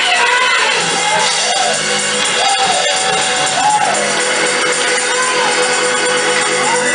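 Live church worship music: singing over a long-held keyboard or organ chord, with scattered percussion hits.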